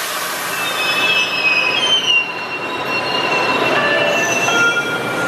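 Steel wheels of an old MBTA Orange Line 01200-series subway train squealing as it moves through the station. Several high-pitched squeal tones overlap, starting and shifting over a steady running rumble, and are strongest about two seconds in.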